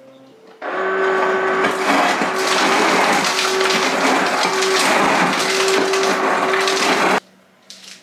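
Whirlpool WRS588FIHZ side-by-side refrigerator's door dispenser making crushed ice: a steady motor hum under the clatter of crushed ice pouring into a cup. It starts about half a second in and cuts off suddenly near the end.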